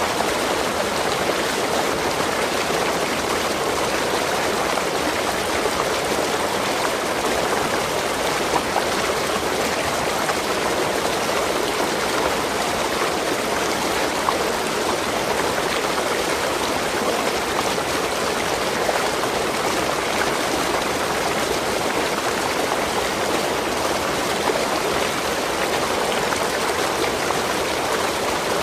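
Waterfall: falling water running as an even, unbroken rush.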